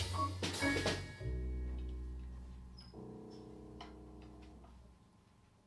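Jazz quintet ending a tune: a few drum and cymbal hits, then the band holds a final chord over a low double-bass note, with a second chord sounding about three seconds in, and the sound fades out.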